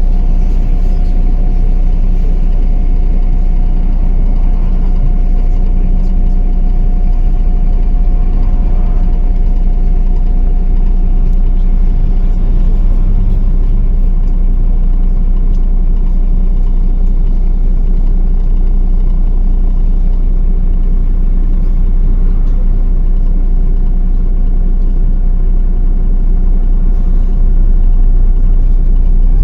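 MAZ-105 articulated city bus heard from inside the cabin: a steady diesel drone with a thin, even whine above it. About the end the sound changes abruptly.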